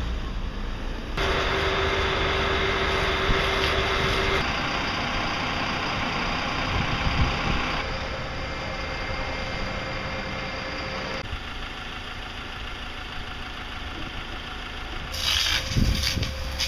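Fire truck engine and pump running steadily, in several spliced segments whose tone changes abruptly. Near the end a hose jet sprays water with a louder hiss.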